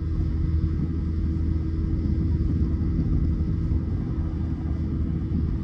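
Boat's outboard motor running steadily with the boat under way, a constant low rumble with a steady engine hum.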